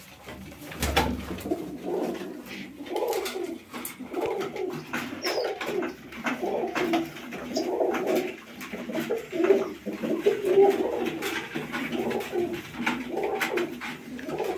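Uzbek tumbler pigeons cooing repeatedly, phrase after phrase, with scattered light clicks and taps and a low thump about a second in.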